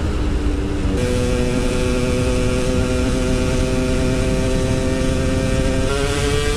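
Yamaha RX-King two-stroke single-cylinder motorcycle engine running at a steady speed, then revving up near the end as the throttle opens.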